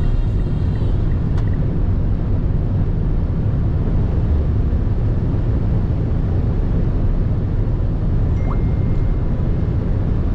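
Steady low road and engine rumble of a Mitsubishi Xpander Cross driving at a constant pace, heard inside the car.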